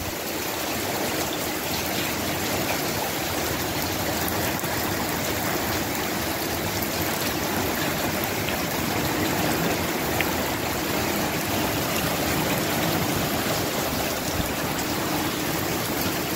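Steady rushing of storm wind and running water, even and unbroken.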